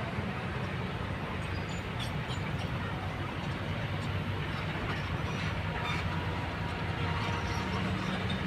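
Kobelco long-reach excavator's diesel engine running steadily under hydraulic load as the machine slews and raises its boom, with a few faint knocks.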